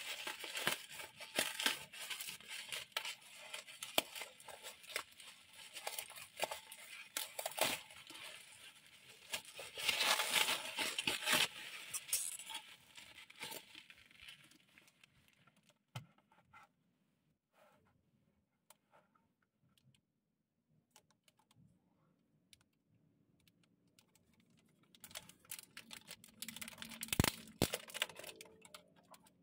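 Plastic bubble wrap crinkling and rustling as it is pulled off a small boxed model car, loudest about ten seconds in. It then thins out to a few faint clicks and taps of handling, before a fresh spell of plastic crinkling near the end as a clear plastic box is handled.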